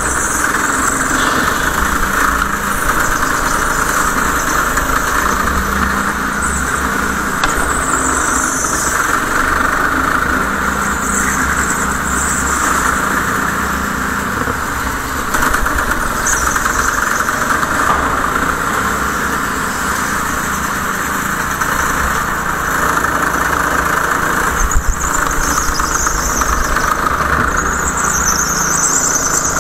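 Go-kart running at racing speed, its motor droning steadily, with short high tyre squeals every few seconds as it takes corners.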